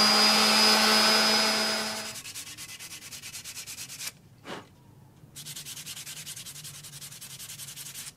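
An electric orbital sander runs steadily on a mulberry bow stave and is switched off about two seconds in. After that comes a quieter, fast, even rasp of a hand rubbing along the sanded wood, twice, with a short pause between.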